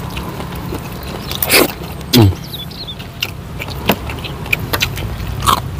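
Eating by hand at close range: scattered mouth clicks and lip smacks of chewing, with two louder short sounds that fall in pitch about one and a half and two seconds in, over a steady low hum.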